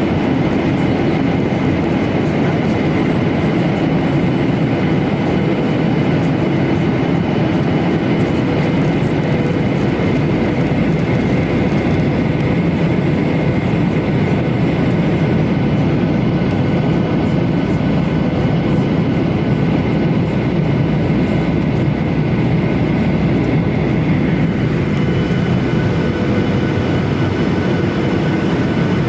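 Cabin noise inside a Boeing 737-900ER in flight: a steady loud rush of air and engine noise with several steady whining tones from its CFM56-7B turbofans, unchanging throughout.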